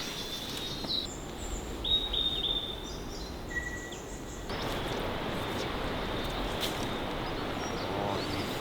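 Birds chirping and whistling in short calls over a steady rushing background noise. About halfway through, the calls stop and the rushing noise jumps louder and steadier.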